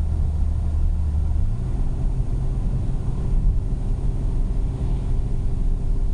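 Car engine running with a steady low rumble; the engine note rises about a second and a half in.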